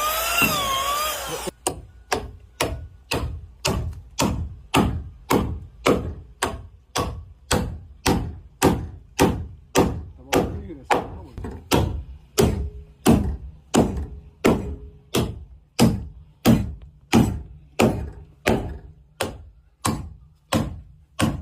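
Hammer driving nails into a wooden boat plank, steady blows about two a second. A brief whine of a power tool comes before the first blow.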